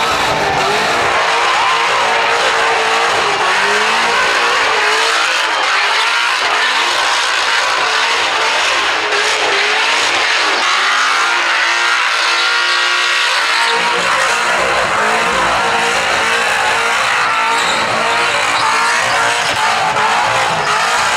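Holden VE Commodore engine held at high revs in a burnout, the note rising and falling with the throttle, over the steady screech of spinning tyres.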